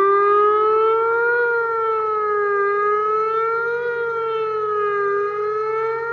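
ATI HPSS-16 electronic plant siren sounding its fire tone. A loud siren wail rises in pitch over the first second and a half, then slowly swings up and down, about two and a half seconds per swing.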